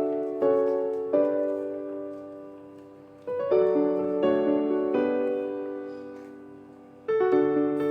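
Background piano music: gentle chords struck in clusters that fade away between them.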